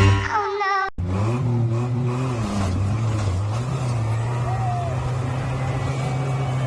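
A short musical jingle ends about a second in, cut straight into an off-road vehicle's engine. The engine revs up and down a couple of times, then runs at a steady pitch.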